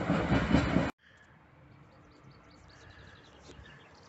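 Loud clattering noise of demolition machinery working on the site, cut off abruptly about a second in. After that there is only faint outdoor background with a few scattered bird chirps.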